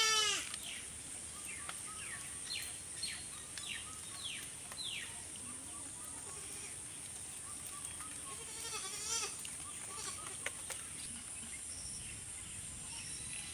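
A goat bleating: the end of a loud, wavering bleat as the sound opens and a fainter wavering bleat about nine seconds in. In between, around three to five seconds in, a bird gives a run of short falling calls, over a steady high-pitched hum.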